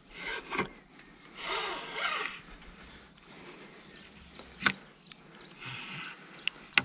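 Spinning fishing reel being cranked in short spells of whirring, with a couple of sharp clicks between them. The line and rig have twisted.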